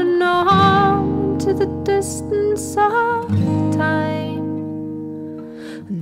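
Scottish traditional folk band music from a studio recording: held melody notes over plucked strings and a steady bass line. The music dies away toward the end, and a loud new phrase comes in right at the close.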